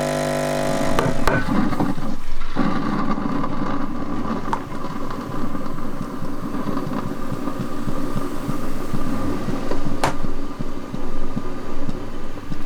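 A vehicle driving along the riverbed, its engine running steadily, with a sharp click about ten seconds in.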